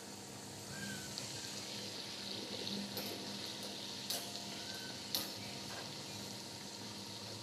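Shankarpali dough pieces sizzling steadily as they deep-fry in hot oil in a steel kadai. A wire skimmer stirring them strikes the pan three times, sharply, about three, four and five seconds in.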